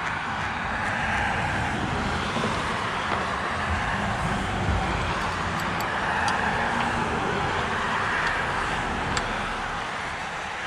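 Steady road-traffic noise that swells in over the first second or so and eases off slightly near the end, with a few faint small clicks.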